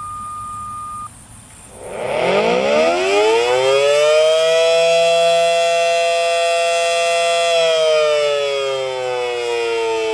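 A steady beep cuts off about a second in. Then a Federal Signal Model 7AT outdoor warning siren winds up from low to a high, held pitch, holds it for a few seconds and begins to wind down near the end: the rise and fall of an attack signal.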